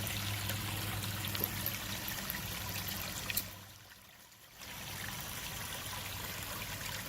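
Waterfall and creek water rushing steadily. The sound drops away for about a second just after three seconds in, after a click.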